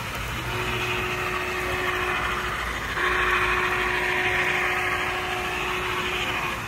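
Model Union Pacific steam locomotive and its train running along the layout track: a steady whirr of the motor and wheels on the rails with a constant low hum. It grows louder about halfway through as the train passes close.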